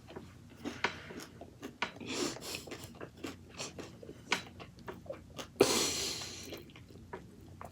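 Close-miked chewing and biting: scattered wet mouth clicks and small crunches, with a brief airy hiss a little before six seconds in.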